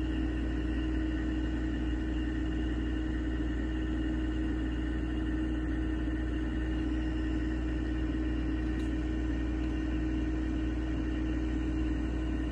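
Steady low rumble and hum with a few constant tones, unchanging.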